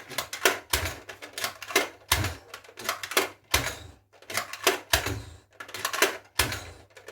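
Nerf foam-dart blaster being worked and fired repeatedly: a run of sharp plastic clicks and snaps, with a dull thump about every second and a half.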